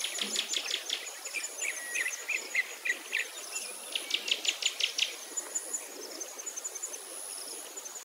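Birds chirping in quick runs, near the start and again about four to five seconds in, over a steady, very high insect buzz that fades in and out in long stretches.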